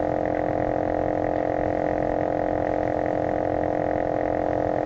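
A steady, unchanging drone of several held tones over a faint hiss.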